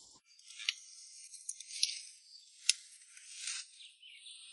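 Grass and leafy stems being cut by hand with a small knife: a few faint, sharp snips with soft rustling in between.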